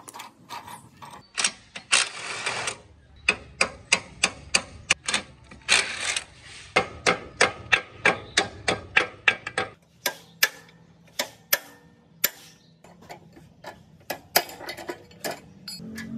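Hammer blows on metal, knocking at the rusted engine mounting bolt: quick runs of several strikes a second, then slower single strikes. Two short hissing noises come between the runs.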